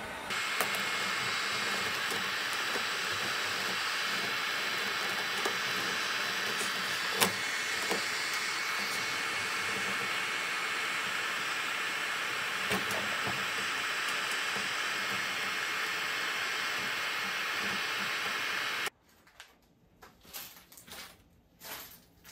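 Electric heat gun blowing steadily, with a few sharp clicks over it, as it heats the epoxy-bonded fiberglass skin of a wooden canoe hull for scraping and peeling. The blowing cuts off suddenly near the end, leaving a few faint knocks.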